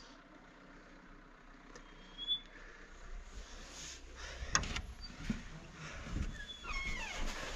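A glass-panelled door handled and pulled open: a sharp latch click about halfway through, then a short falling squeak from the hinges as the door swings, over a low rumble.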